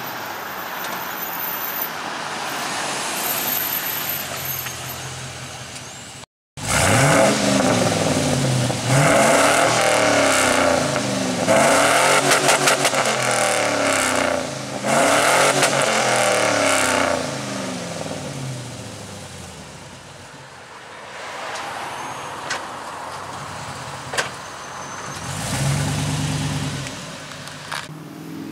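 Exhaust of a 1999 Chevy Silverado 2500's 6.0 L LQ4 V8 through a Flowmaster FlowFX straight-through perforated muffler. First a steady drone as the truck drives up, then, close by, a loud run of repeated revs, each rising in pitch and falling back, before the engine settles quieter.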